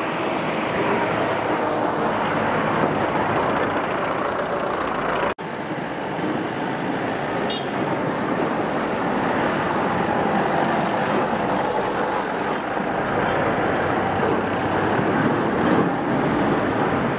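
Street traffic noise: a steady wash of passing vehicles on a hillside road, which cuts out for an instant about five seconds in.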